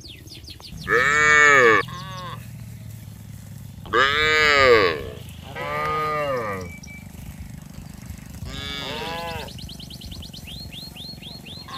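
Cattle mooing: five calls, each rising then falling in pitch. The two at about one second and four seconds in are the loudest, and the others are fainter. A fast run of high chirps is heard at the start and again near the end.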